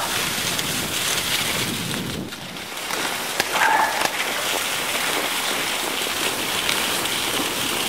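Skis sliding fast over hard-packed, rutted snow while a dog tows the skier: a steady, crackly hiss.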